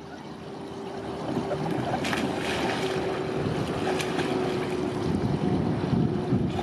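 Pool water splashing and churning as a boxer puppy goes into a swimming pool and paddles, growing louder about a second in. Wind noise on the microphone, with a steady hum underneath.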